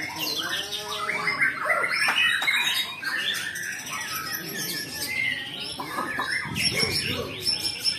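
Several caged white-rumped shamas (murai batu) singing at once, a dense tangle of overlapping whistles, trills and chirps that rise and fall.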